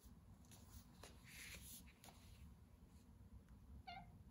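Near silence with faint rustling and light taps as a hardcover picture book is closed and turned over in the hands, and a short faint hum near the end.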